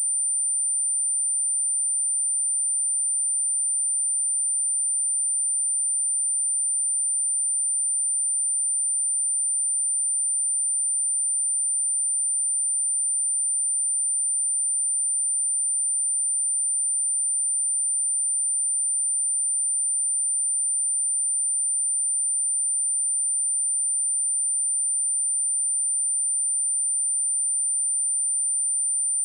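A steady, high-pitched pure sine-wave test tone at 9135 Hz, one unbroken tone held at a constant level.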